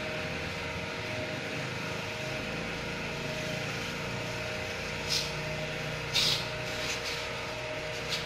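Steady mechanical hum of a running motor, with a few short hissing bursts about five and six seconds in.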